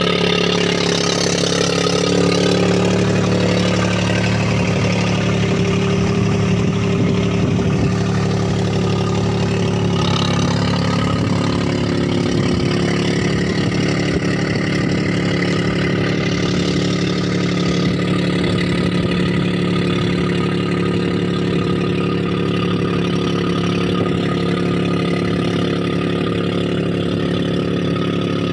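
Mahindra 275 DI tractor's diesel engine running steadily under load with no silencer on its exhaust, driving a rotavator through flooded paddy.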